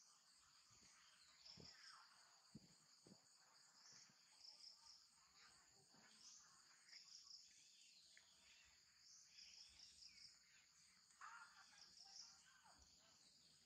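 Faint, high insect chorus chirring steadily in a pulsing rhythm, with a few faint soft knocks scattered through it.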